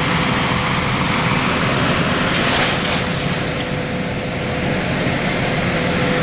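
Heavy truck engine running steadily: a loud, even drone with a faint steady hum over it.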